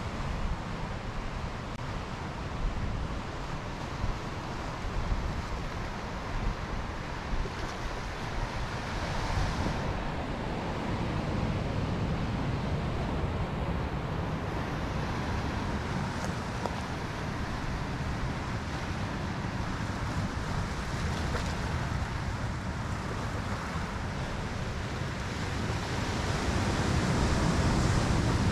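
Ocean surf washing and breaking on a rocky shore, with wind buffeting the microphone; the surf grows louder near the end.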